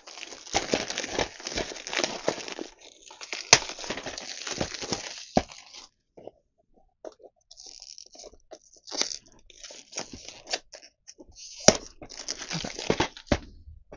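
Plastic DVD case and its wrapping being handled: crinkling and crunching that is dense for the first half, then sparser crackles with a couple of sharp clicks.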